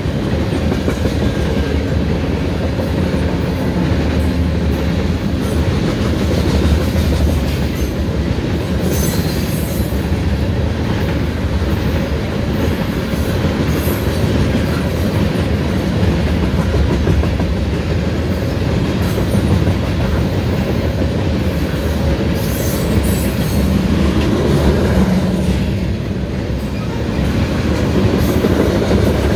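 Freight train tank cars rolling past: a steady rumble and clatter of steel wheels on the rails.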